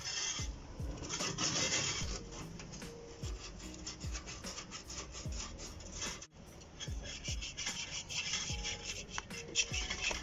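Abrasive scraping and rubbing on copper tubing in uneven bouts, cleaning a refrigerator's new suction line before brazing, over background music with a steady beat.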